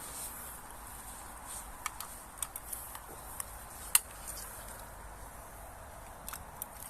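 A handful of small sharp clicks and taps from handling a digital fish scale while its flat batteries are swapped for spares, the loudest about four seconds in, over a faint outdoor hiss.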